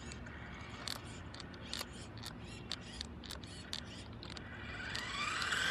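Remote-control toy car with twin Mabuchi 280 electric motors: a scatter of sharp clicks and taps, then near the end the motors' whine rises as the car speeds up.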